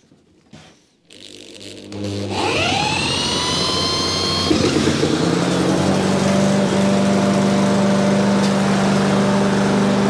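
A high-speed drill spins up with a rising whine, cranking a Mountfield lawnmower's petrol engine, which has a broken pull cord. The engine catches at once when turned over this fast and keeps running steadily after the drill stops, about four and a half seconds in.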